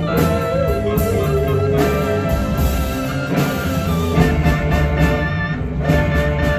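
Live band music with guitar and drums playing a steady beat.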